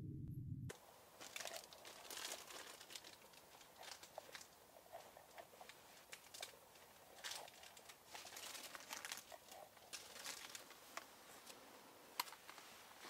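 Knife carving a small pumpkin: faint, irregular crunching and scraping as the blade cuts through the rind, with small clicks throughout.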